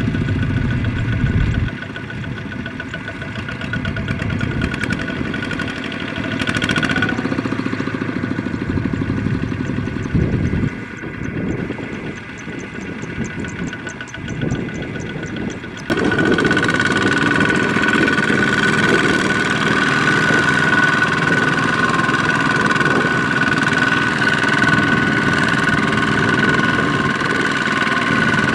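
Kubota ZT155 single-cylinder diesel engines of two-wheel tractors running under load as the tractors haul sacks of rice through deep mud. The engine sound shifts abruptly about two seconds in, again around eleven seconds, and at about sixteen seconds, after which it is louder with a steady high whine.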